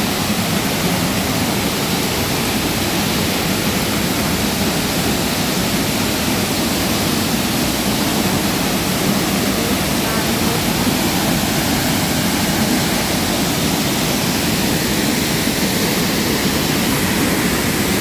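Waterfall: a loud, steady rush of a heavy volume of falling water.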